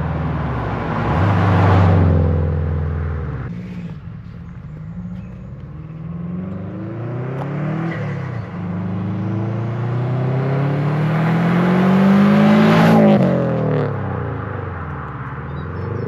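Turbocharged Subaru Impreza GT's flat-four engine and loud aftermarket exhaust revving. The pitch rises and falls several times, then climbs steadily to its loudest about thirteen seconds in and drops away.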